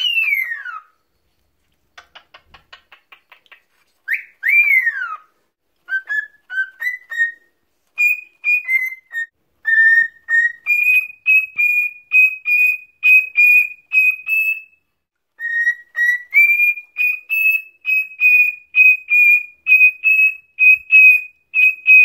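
Male cockatiel whistling: two swooping notes that rise and then fall, then a long run of short, clipped whistled notes about two a second, mostly on one pitch.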